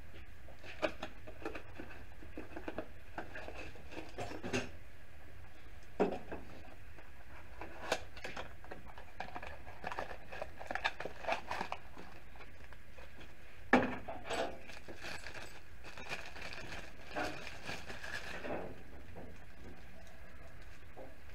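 A new ignition switch being taken out of its small cardboard box and handled: scattered light clicks and taps with short bursts of rustling, and a sharper knock about 14 seconds in, over a steady low hum.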